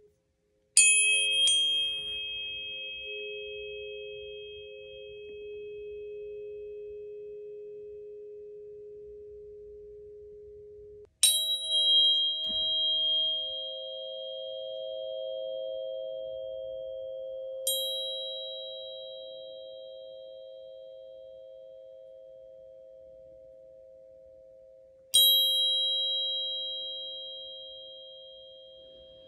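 A pair of solfeggio tuning forks, 528 Hz and 417 Hz, struck and left ringing, then a 639 Hz and 528 Hz pair struck about eleven seconds in and re-struck twice. Each strike is a bright metallic ping that fades into a long two-note hum, the two tones set 111 Hz apart.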